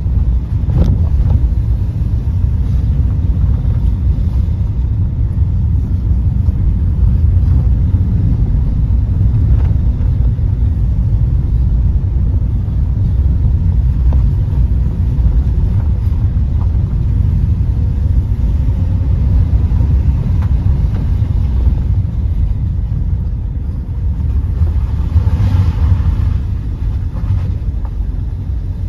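Car driving along a country road, heard from inside the cabin: a steady low rumble of engine and tyres on the road. About 25 seconds in, a short rise of hissing noise comes over it.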